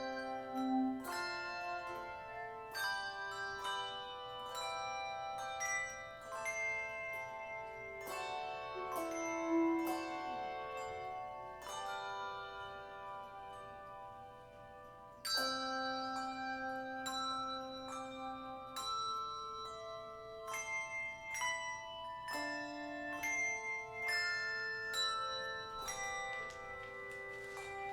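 Handbell choir playing a piece: many bells struck in chords and melody, each note ringing on. The music thins and grows softer toward the middle, then comes back with a loud chord about 15 seconds in.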